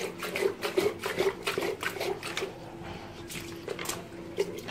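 Water sloshing and splashing inside a lead-acid battery case as it is shaken hard to rinse black sludge out of the cells, in quick repeated splashes that thin out in the second half.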